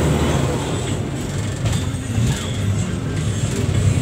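Steady engine and road rumble of a moving vehicle, heard from inside as it drives.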